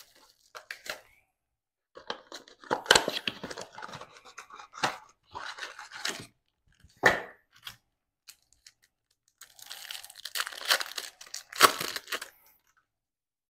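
Plastic wrap and cardboard of a trading-card blaster box being torn and opened in irregular crackling spells, then a foil card pack crinkled and torn open in a denser spell about ten seconds in.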